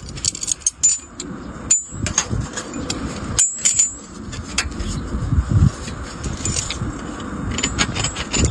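Irregular light taps and clinks of metal on sheet iron, several a second, each with a brief high metallic ring, as the sheet is hammered into shape for a spatula.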